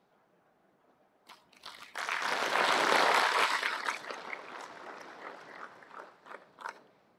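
Audience applauding: a few single claps about a second in, swelling to full applause, then thinning out to scattered last claps near the end.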